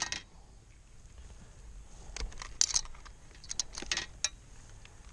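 A few light clicks and taps in two short clusters, about two seconds in and again about three and a half seconds in.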